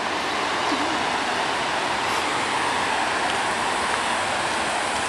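Dam water rushing in a steady, even stream of noise that swells a little at the start.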